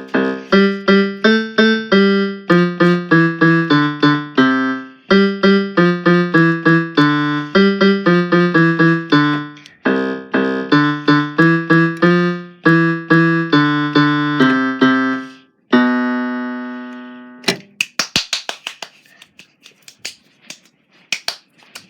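Piano played: a short tune of struck chords and melody notes that repeats, ending about 17 seconds in on a long held note. Then come a few seconds of light clicks and knocks.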